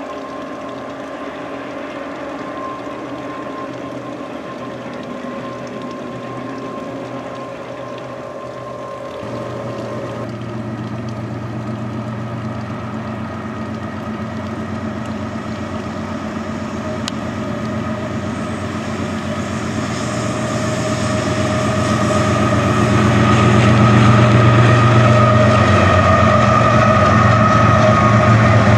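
A distant train's steady hum, then, from about nine seconds in, the diesel engines of a freight train's lead locomotives, growing steadily louder as they approach and pass close by.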